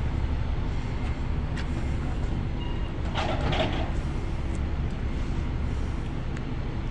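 Steady low rumble of vehicle engines and traffic, with a brief higher-pitched sound about three seconds in.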